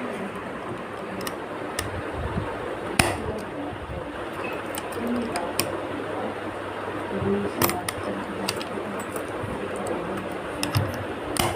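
Handling noise from a hard-shell suitcase: scattered sharp clicks and knocks, three of them louder, over a steady background hiss.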